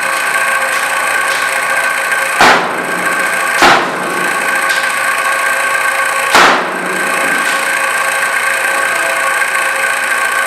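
A meat cleaver chopping raw chicken on a cutting board: three heavy single chops, about two and a half, three and a half and six and a half seconds in. A steady machine-like hum runs underneath throughout.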